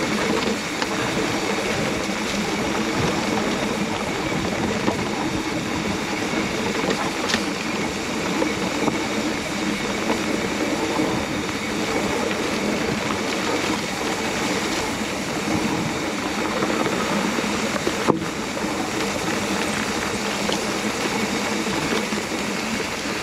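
Mountain bike ridden along a rough dirt track: a steady rumble and rattle of the tyres and the bike over the ground. A single sharp knock comes about three quarters of the way through.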